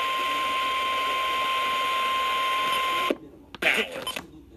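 NOAA Weather Radio warning alarm tone, a single steady beep near 1 kHz, heard over steady radio hiss. It cuts out about three seconds in, leaving short crackles and gaps.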